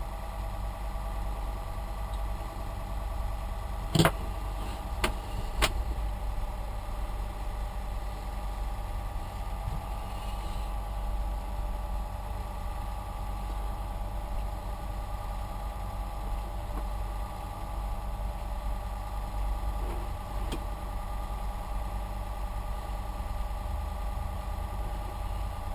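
Several small 12-volt PC cooling fans running steadily, a whirring hum with a few steady tones. A handful of sharp clicks or knocks sound about four seconds in, twice more shortly after.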